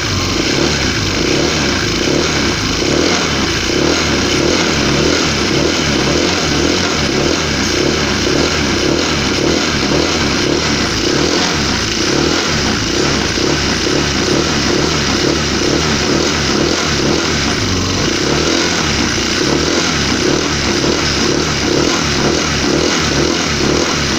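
Honda PCX scooter engine running steadily with a rough, rhythmic snoring sound, 'krok krok krok'. The mechanic says this roughness is a factory trait rather than a fault.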